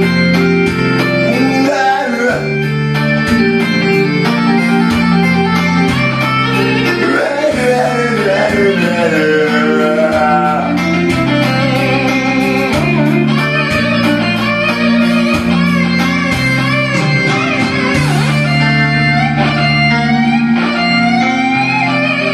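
Karaoke backing track with guitar carrying a wavering melody over a stepping bass line.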